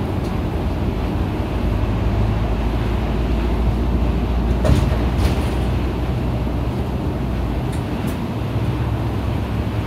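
Isuzu KL-LV280N1 city bus's diesel engine running steadily under way, a loud low drone heard from inside the cabin, with two sharp clicks about halfway through.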